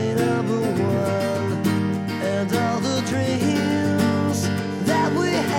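Music: a strummed acoustic guitar song, with a melody line moving over the chords.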